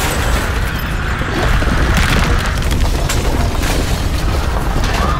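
Earthquake rumble sound effect: a loud, unbroken deep rumble with cracks and knocks scattered over it.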